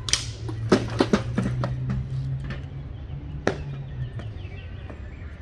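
Scattered sharp knocks and stamps from a marching drum corps breaking formation: boots striking pavement and drums being handled. The knocks are thickest in the first second and a half, with one more about three and a half seconds in, over a low steady hum that stops about four seconds in.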